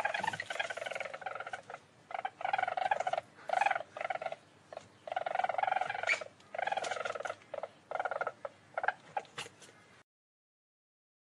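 Least weasel giving a run of rapid trilling calls in bursts, the longer ones about a second each, broken by short pauses; the calls cut off about ten seconds in.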